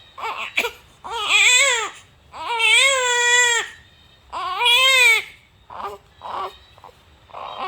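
Infant crying from hunger for milk: three long wails in the first five seconds, each rising and then falling in pitch, followed by shorter, quieter cries.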